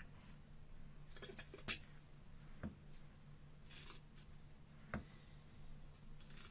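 Faint handling sounds: a few light clicks, the sharpest nearly two seconds in, and a couple of short rustles, over a low steady hum.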